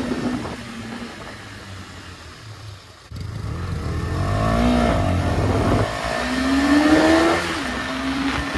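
KTM 250 Duke single-cylinder motorcycle engine under acceleration. It is quieter for the first three seconds, then louder, its pitch rising and falling as it revs. It climbs again past six seconds and drops back to a steadier note about three-quarters through.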